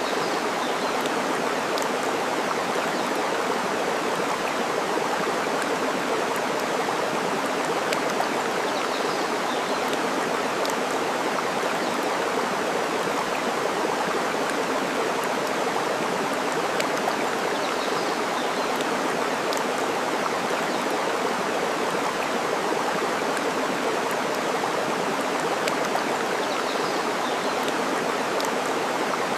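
Steady rush of flowing water, with a few faint scattered crackles from a wood fire.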